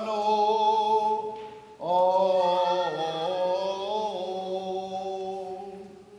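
Byzantine-rite liturgical chanting, a sung melody over a steady held low note, with a short break about two seconds in.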